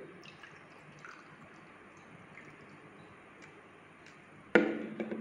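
Faint small ticks and clinks of a cup being handled over a funnel and plastic bottle while vinegar is poured, then one sharp knock about four and a half seconds in that dies away quickly.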